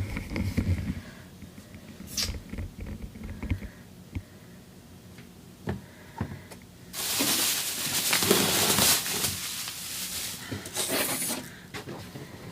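Handling noises from unpacking an induction cooktop: a few low knocks and clicks, then a few seconds of loud rustling of the packaging starting about seven seconds in.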